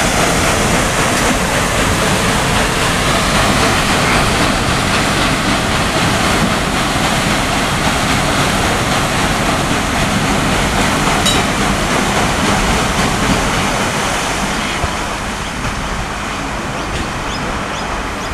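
Side paddle wheel of the steam paddle steamer PS Melbourne churning the river water as she steams past: a loud, steady rushing splash that fades slowly over the last few seconds as she draws away.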